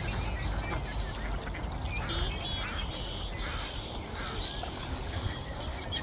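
A flock of ducks, mostly mallards with northern pintails among them, quacking and calling over one another in many short overlapping calls.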